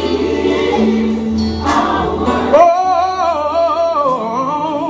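Gospel choir singing a slow worship song with instrumental backing. About two and a half seconds in, one voice rises over the choir and holds a long note with a wide vibrato, then slides down.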